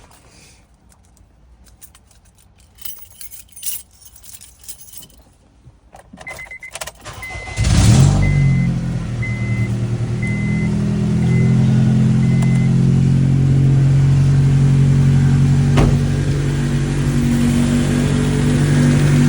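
Keys jangling and small clicks, then a dashboard chime beeping about once a second, before the 2004 Honda Civic Si's K-series four-cylinder engine cranks and starts about eight seconds in and settles into a steady idle.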